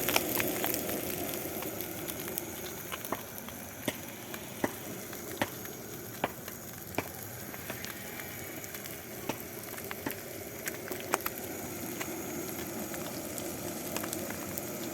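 Fish frying in hot oil in a pan: a steady sizzle with scattered sharp pops.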